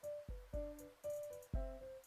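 Background music: a light tune of plucked notes, guitar-like, several notes a second, each fading after it is struck.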